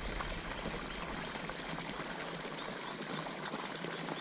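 Water pouring steadily into a pond from an inflow where fresh water is pumped in, a constant rushing splash. Faint short high chirps come and go over it.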